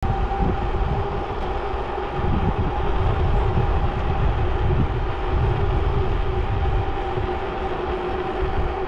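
Wind buffeting the microphone of a camera on a moving bicycle: an uneven low rumble, with a steady whine from the ride running underneath.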